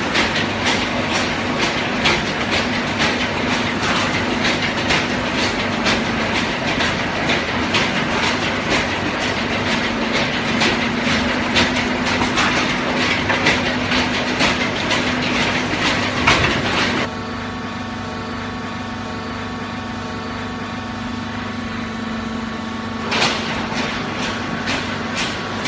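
Industrial cardboard baler running: a steady motor hum under a dense, rapid clattering rattle. The clatter cuts off abruptly about two-thirds of the way in, leaving only the hum, and starts again near the end.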